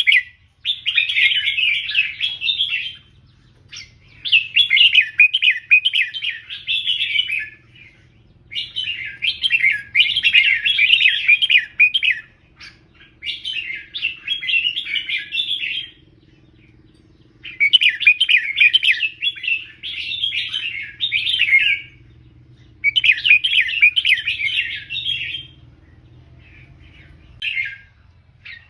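Red-whiskered bulbul singing: a run of quick warbled song phrases, each one and a half to three seconds long, with short pauses between them.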